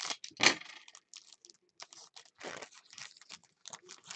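Shiny foil wrapper of a 2015 Panini Certified football card pack being torn open and crinkled by hand: irregular crackling rips, loudest about half a second in.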